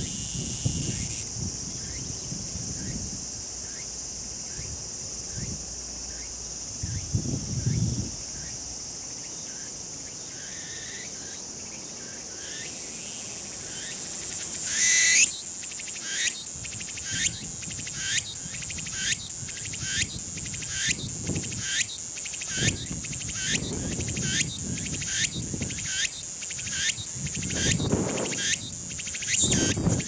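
Meimuna opalifera (tsukutsukuboshi) cicada song: a steady high buzz, then about halfway through it swells and breaks into a rhythmic repeated phrase, a little more than once a second.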